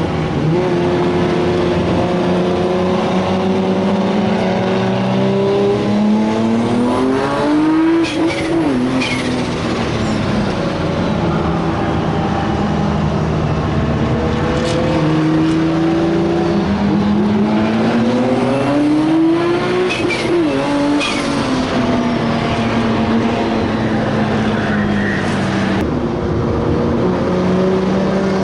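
Nissan Skyline R34 GT-R's single-turbo 3.2-litre RB straight-six, heard from inside the car, accelerating hard twice. Each time the pitch climbs for several seconds, then falls away as the throttle closes, with short sharp noises at each lift-off.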